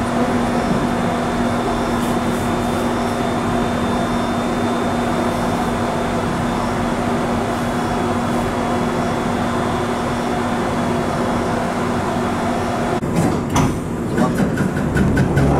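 London Underground Bakerloo line train: a steady rumble and hum with a steady low tone. About thirteen seconds in, the tone drops away and the sound turns into irregular clatter and knocks.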